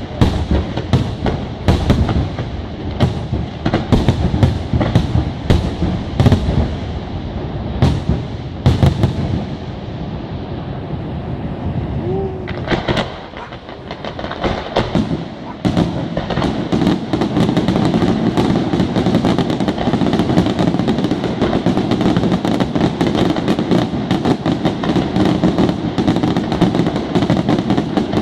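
Fireworks display: aerial shells bursting with sharp, separate bangs about once or twice a second, then a short lull, then from about sixteen seconds in a dense, continuous run of rapid reports from a barrage.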